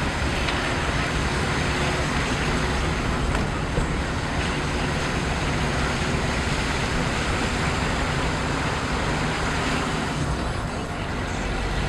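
Car driving steadily along a narrow lane: steady engine and tyre-on-road noise heard from inside the cabin.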